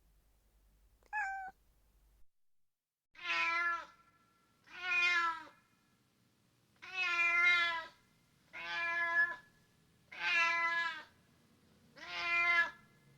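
A cat gives one short meow about a second in. After a short pause an excited tom cat meows six times, each meow long and drawn out, one every second and a half to two seconds.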